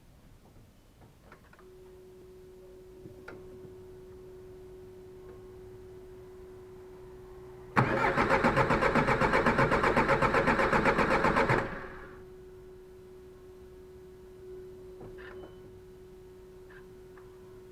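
Suzuki Grand Vitara 1.9 DDiS diesel engine cranking on its starter with a rhythmic pulse for about four seconds without firing, then the starter stops. The no-start comes from a sheared camshaft pulley key that has thrown the timing off. A steady electronic tone sounds before and after the cranking.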